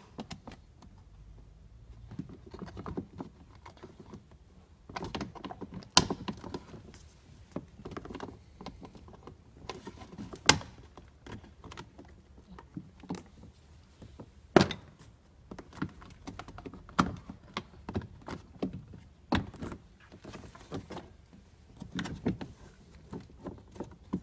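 Plastic door trim on a Nissan Murano Z51 front door being pulled and flexed by hand: scattered plastic knocks and rubbing, with four sharp clicks spaced several seconds apart as the panel is worked against its fastenings.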